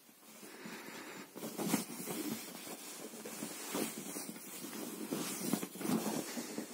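Blanket fabric rustling and scuffing as a tabby cat paws and claws at a hand moving under the sofa throw, with a few sharper scuffs from the pounces.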